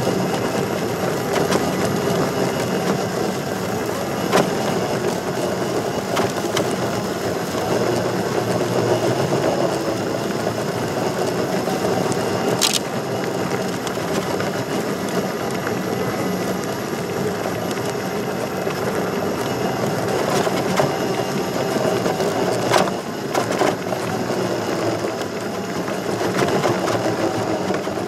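Electric unicycle rolling along a dirt trail: a steady rumble of the tyre over dirt and gravel, with a few sharp clicks and knocks from bumps.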